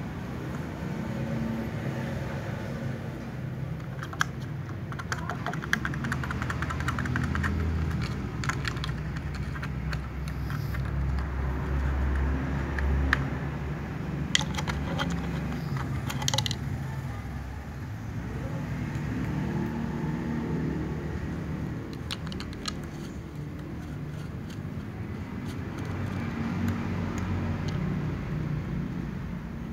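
Steady low rumble of distant traffic, with scattered bursts of small clicks and taps as cats eat out of a thin plastic container.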